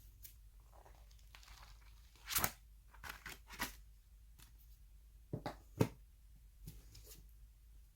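Book packaging being opened by hand: a few short tearing and rustling sounds, with two sharp clicks a little past the middle.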